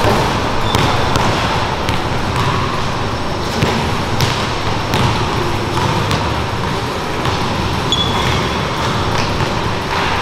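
A basketball bouncing and striking the rim and backboard in a gym, several separate knocks, with sneakers squeaking briefly on the hardwood floor about a second in and again near the end.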